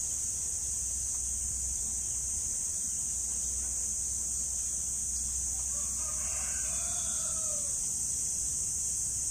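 Steady high insect drone throughout, with a rooster crowing once about six seconds in, a single arched call lasting around two seconds.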